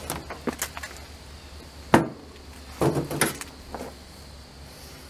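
A screwdriver chipping and prying set plaster-of-paris investment out of a metal casting flask on a metal table: scraping and cracking of plaster, with a single sharp knock about two seconds in and a burst of clattering about a second later.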